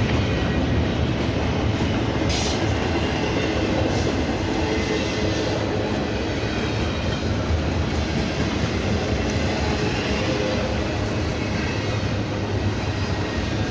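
Freight train rolling past: the steady noise of its cars' wheels running on the rails.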